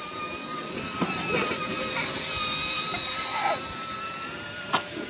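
Electric ride-on toy car driving: a steady whine from its motor and gearbox over the rumble of its wheels rolling on concrete, with a sharp click near the end.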